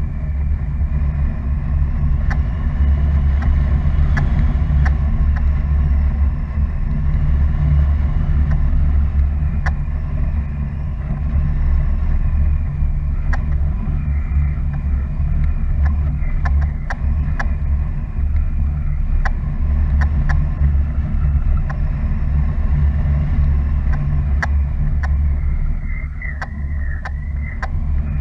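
Wind rushing over the camera's microphone in paragliding flight: a steady deep rumble, with scattered light clicks.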